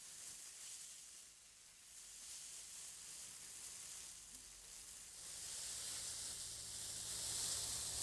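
A very thin plastic produce bag rubbed and rustled by hand to imitate the hiss of waves on a shore. The soft hiss ebbs and swells, dipping about a second and a half in and growing louder over the last few seconds.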